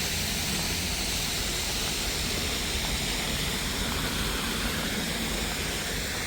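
Steady rush of falling water from a park waterfall and stream, an even hiss with a low rumble beneath it.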